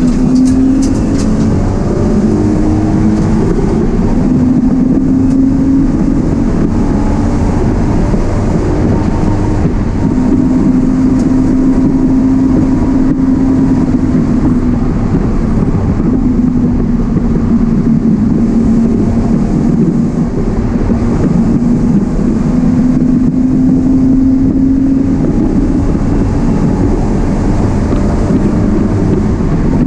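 In-cabin sound of an E36 BMW 328i's straight-six engine pulling hard on track, over loud road and tyre rumble. The engine note climbs slowly and drops back several times as the car accelerates and lifts or shifts.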